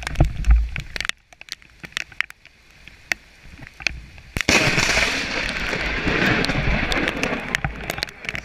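Sudden loud crack of nearby thunder about halfway through, going on as a crackling rumble that fades over about four seconds. Before it there are only scattered ticks and low thumps on the microphone.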